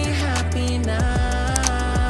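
Background pop music with a steady beat and deep bass notes that slide down in pitch.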